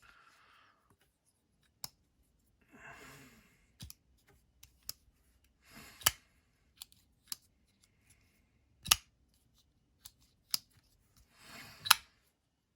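TRM Atom folding knife's blade being swung open and shut by hand: short sliding swishes, each ending in a sharp metallic snap, three loud snaps about three seconds apart with lighter clicks between.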